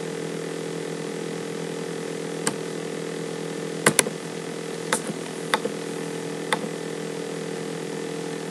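A steady hum made of several held low tones, with a few short clicks scattered through it, two of them close together about four seconds in.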